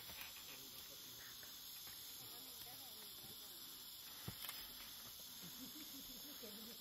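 Faint, steady insect chirring, with one sharp click about four seconds in.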